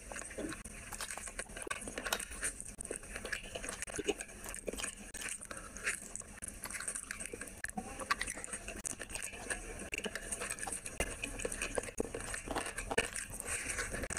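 Close-miked chewing and mouth sounds of a person eating rice and curry by hand, full of quick, wet clicks.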